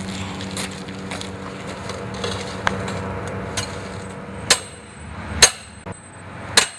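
Hammer driving a metal stake into the ground: three sharp, ringing metallic strikes about a second apart in the second half. Before them there is a steady low drone.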